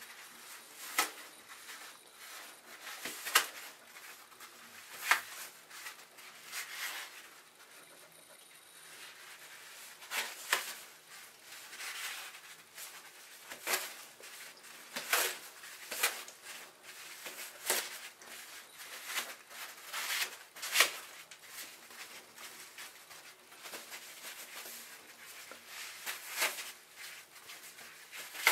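Torn toilet paper scrunched and rustled under a bare foot: irregular crinkling rustles, one every second or two.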